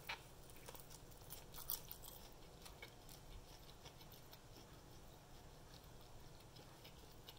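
Near silence: faint room tone, with a few faint clicks and taps in the first two seconds.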